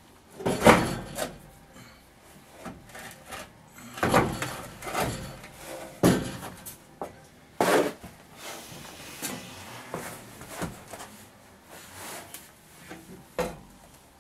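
A series of irregular knocks, clunks and scrapes from parts being handled while an electric motor is set into place in a steel vehicle frame. The loudest knock comes about half a second in, with others around four, six and seven and a half seconds.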